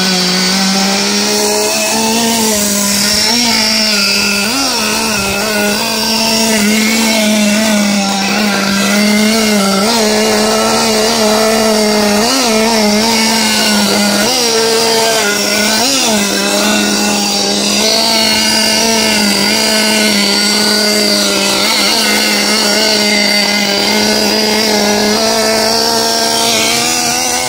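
Small two-stroke nitro glow engine of an RC monster truck running at a steady high buzz, with several brief throttle blips that raise the pitch for a moment.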